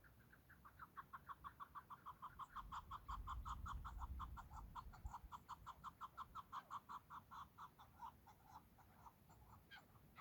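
Chukar partridge calling: a long, rapid run of short clucking notes, about seven a second, with a low rumble underneath a few seconds in.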